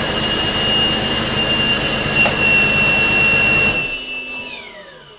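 2002 BMW X5 engine running with a steady high whine, then switched off about four seconds in; the noise stops abruptly and the whine falls away as it winds down.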